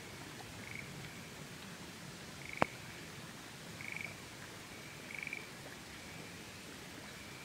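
Frogs calling: four short pulsed croaks, a second or more apart, over a faint steady hiss. A single sharp click about two and a half seconds in is the loudest sound.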